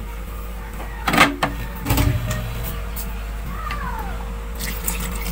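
Garlic cloves tipped from a dish into a cooking pot of fried pork pieces and shallots, with a sharp knock about a second in and a duller thump just after, then a few small clicks near the end.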